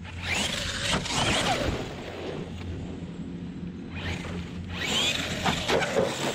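HoBao Hyper MT Plus II 1/7-scale electric monster truck driving hard on dirt, its brushless motor whining up and down in pitch with tyres churning and throwing dirt. It makes two loud runs, about a second in and again near the end.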